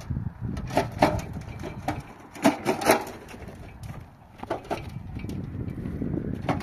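Loaded metal wheelbarrow rolling over rough dirt ground, its wheel rumbling steadily. The concrete blocks in the tray knock and clank against each other and the metal several times, about a second in, two and a half to three seconds in, and again about four and a half seconds in.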